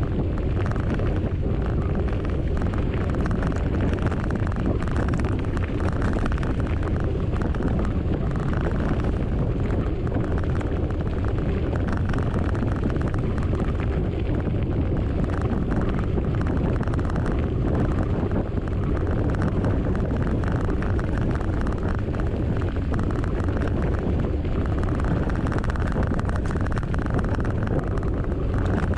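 Steady wind rumble buffeting the microphone of a camera mounted on a moving mountain bike.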